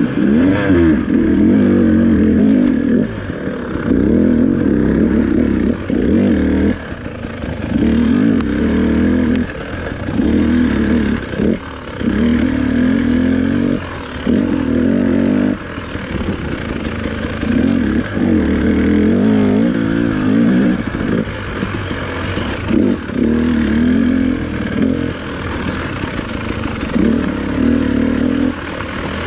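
2018 KTM 300XC's 300cc two-stroke single, with stock pipe and FMF Turbine Core silencer, revving hard in short bursts as the throttle is opened and chopped over and over while the bike is ridden fast. The engine note rises and falls, with brief drops between bursts.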